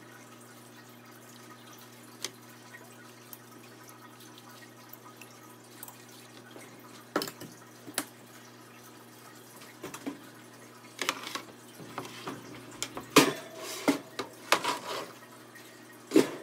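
Scattered knocks and clicks of kitchen work, utensils, bowls and trays being handled, coming thicker and louder in the second half, over a faint steady hum.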